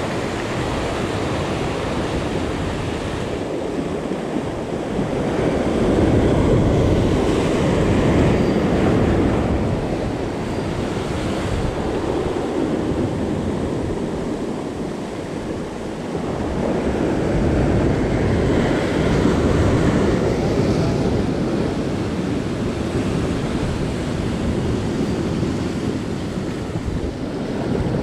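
Sea surf washing against the shore, swelling louder twice as waves come in, with wind on the microphone.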